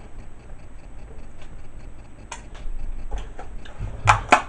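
Kitchen handling noises: scattered light clicks and knocks over a low background hum, with a few sharper knocks close together near the end.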